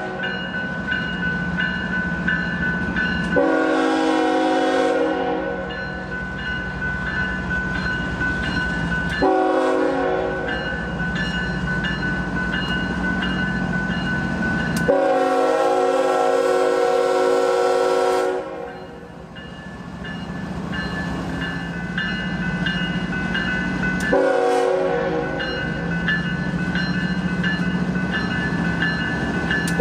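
Union Pacific diesel freight locomotive sounding its air horn for grade crossings: about five chord blasts several seconds apart, the one about halfway through the longest. The low rumble of the diesel engine runs underneath.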